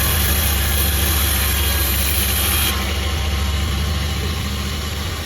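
Sawmill running steadily: a low engine-like drone under a high, hissing sawing noise, with the hiss dropping off suddenly about halfway through while the machine keeps running.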